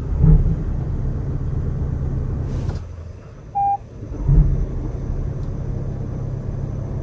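Toyota Crown Hybrid Max's 2.4-litre turbocharged four-cylinder petrol engine heard from inside the cabin, running with a low rumble. It stops just under three seconds in, a single short electronic beep sounds, and a second later the engine starts again with a thump and keeps running.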